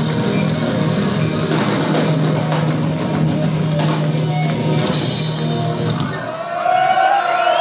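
Live rock band playing loud, with electric guitars, bass and drums. About six seconds in the bass and the full band drop out as the song ends, and voices shout over what is left.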